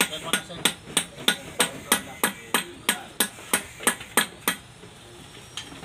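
Hammer blows on the hub of a multi-groove metal belt pulley: sharp, even metal taps about three a second, stopping about four and a half seconds in.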